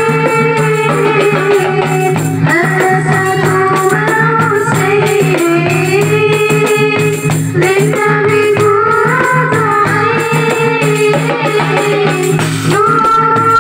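Marawis ensemble music: hand drums and jingling, rattling percussion under a melody of long held notes that slide between pitches.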